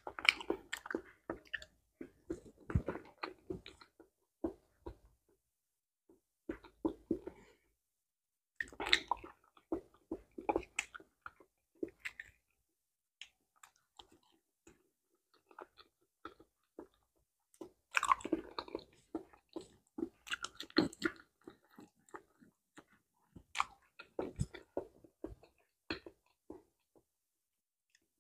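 Eating bananas up close: peels pulled back and mouthfuls of soft banana bitten and chewed, with wet mouth sounds, coming in bursts separated by short pauses.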